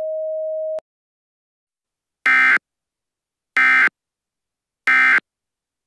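Emergency alert broadcast tones: a steady single tone stops under a second in, then three short buzzy beeps sound about 1.3 seconds apart, marking the end of the alert message.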